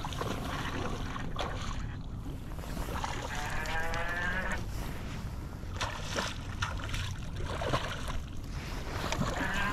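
Creek water rushing and splashing, with a wavering whine for about two seconds a few seconds in.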